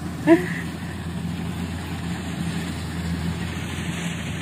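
Rice combine harvester's engine running steadily with a low, even drone. A brief, loud, pitched sound cuts in about a third of a second in.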